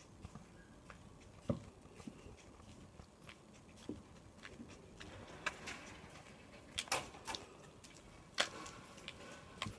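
Footsteps on asphalt: faint, sharp shoe-sole clicks at an uneven pace over a low background hush.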